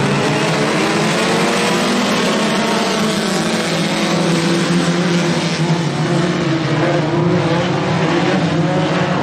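A pack of four-cylinder Super 4 class race cars accelerating together at the start, many engines revving at once with several pitches rising over the first few seconds.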